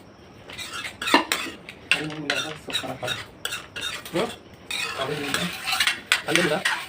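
Cutlery clinking and scraping against dishes and pots, with irregular sharp knocks, as food is stirred.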